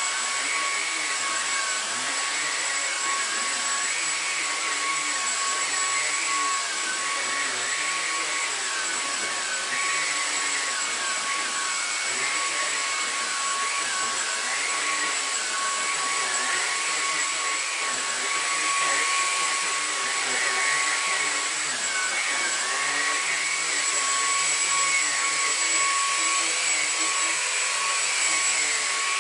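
Numatic Henry Quick HEN70 cordless vacuum cleaner running steadily, a constant rush of suction with a high motor whine, its floor tool being worked over a mattress.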